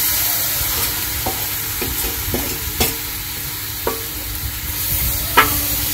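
Hechi shak greens frying in garlic oil in a karai, a steady sizzle, while they are stirred, with the utensil scraping and knocking on the pan about eight times.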